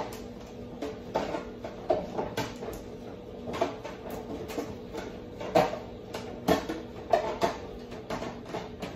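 Gloved hands patting and pressing raw ground-beef meatloaf into shape in a disposable aluminium foil pan: irregular soft pats and squishes, about two a second, over a faint steady hum.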